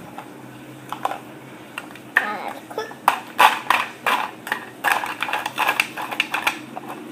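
Plastic toy food and toy utensils clattering and knocking against a toy cooking pot: a quick run of clicks and knocks from about three seconds in.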